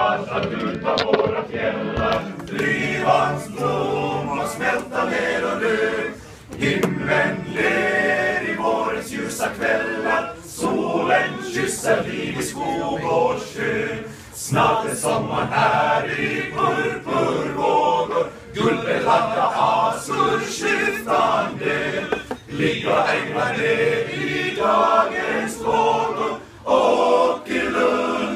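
Male voice choir singing a cappella in harmony, in phrases of about four seconds with short breaks between them.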